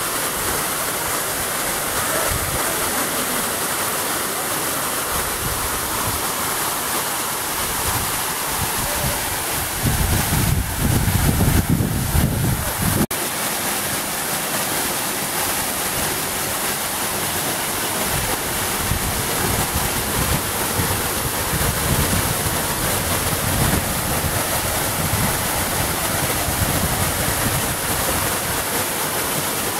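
Waterfall pouring down a rock face into a rocky pool: a steady, even rush of falling water. From about ten to thirteen seconds in, a louder low rumble sits over it and cuts off abruptly.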